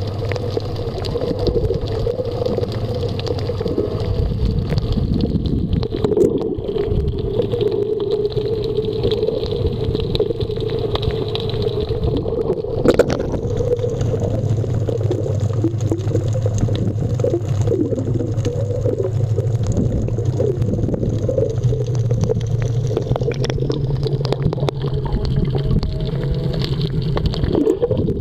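Underwater sound picked up by a camera in a waterproof housing: muffled water movement and gurgling with a steady low hum, and a single knock about halfway through.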